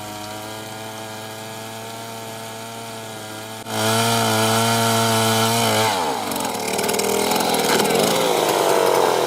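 A wood-cutting power tool's engine running at a steady pitch. It gets much louder about a third of the way in, then drops in pitch about 6 seconds in as it bogs down into the cut, giving way to a rougher, wavering cutting sound.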